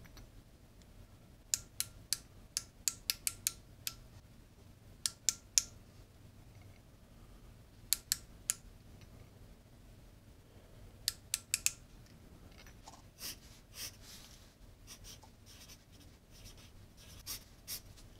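Micrometer ratchet stop clicking in quick runs of several sharp clicks, four times, as the micrometer is closed on a piston to measure its diameter. Near the end, softer scratching of a pencil writing on paper.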